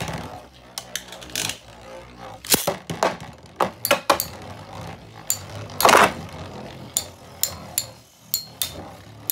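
Two metal Beyblade spinning tops whirring in a plastic stadium and repeatedly clashing. A low steady hum runs under sharp metallic clinks and knocks at irregular intervals, the loudest hit about six seconds in.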